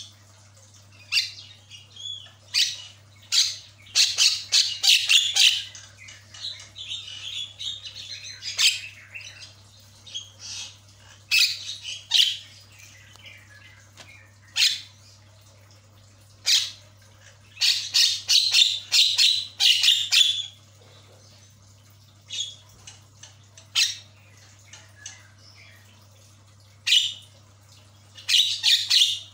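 Javan myna calling in quick runs of short, rasping notes, with single calls in between. The longest runs come about four seconds in, about two-thirds of the way through, and again near the end.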